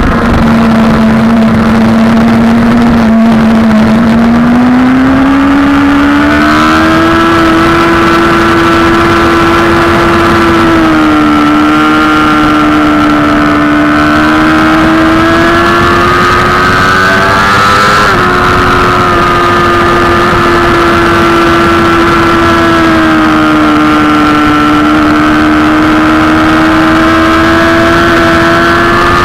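Sport motorcycle engine at high revs, heard from on board over steady wind noise. The note holds low for a few seconds, climbs as the bike accelerates, and drops sharply once about 18 seconds in at an upshift, then eases off and climbs again near the end.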